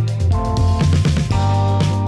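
Instrumental background music with held notes and a steady beat about twice a second.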